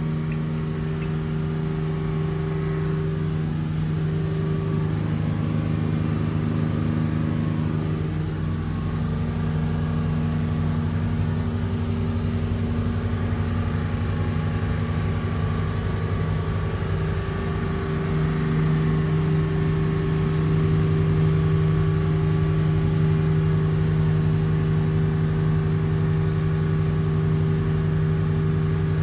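Twin Volvo Penta KAD300 diesel sterndrive engines running steadily at cruising speed on the plane, about 3300 RPM, heard from the helm with wind and water noise. The engine note grows a little louder about eighteen seconds in.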